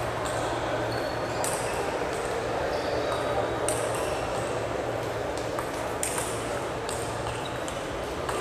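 Table tennis ball clicking sharply off the bats and table in a rally, the hits coming irregularly, over steady hall noise.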